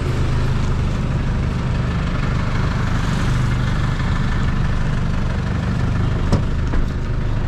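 A car engine idling steadily close by, with one sharp click about six seconds in.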